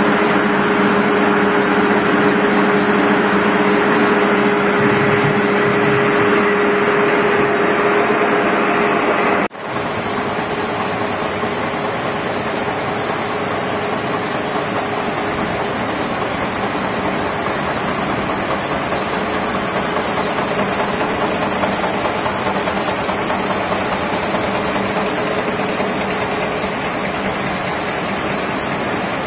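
Steady industrial machine noise from a steel-ball grinding machine churning a bed of small steel balls, with a constant hum. About nine seconds in, the sound cuts abruptly to the steady din of a factory floor of wire-fed cold-heading presses running.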